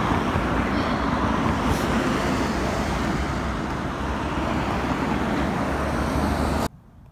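Steady road traffic noise, which cuts off abruptly near the end.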